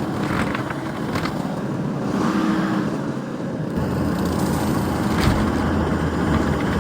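Skid steer engine running under load, louder about four seconds in, with a few short knocks.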